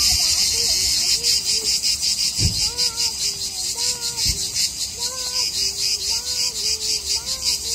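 Cicadas singing: a loud, high, shrill buzz that turns about a second in into an even pulsing of about four beats a second.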